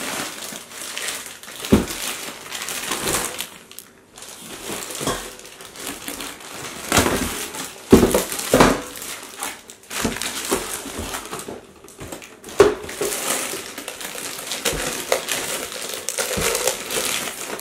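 Clear plastic bags crinkling and rustling as stainless steel pots are pulled out of their wrapping, with scattered sharp knocks and clunks of handling throughout.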